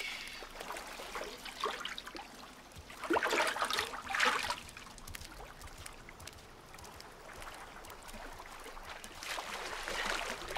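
Hot-tub water sloshing and splashing as people climb out, with trickling and dripping; the loudest splashing comes about three to four and a half seconds in, with more water noise near the end.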